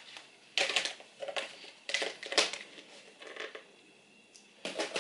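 Things being handled and unpacked: several short, irregular bursts of clatter and rustling, the loudest about two and a half seconds in.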